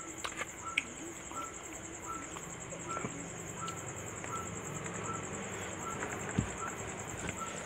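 Insects trilling steadily at a high pitch, with a bird repeating a short single note about every two-thirds of a second. A few soft clicks and one low knock come in between.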